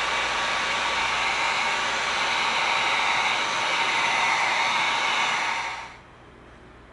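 Heat gun blowing steadily as it heat-seals the freshly Dremel-sanded edges of EVA foam, switching off about six seconds in.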